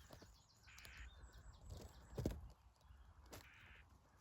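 Faint outdoor quiet with two short, harsh bird calls about three seconds apart, and a couple of soft knocks in between.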